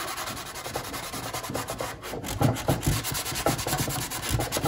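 Sandpaper rubbed over a Vespa glovebox in quick, repeated back-and-forth strokes. It is scuffing the surface dull to key it for fibreglass.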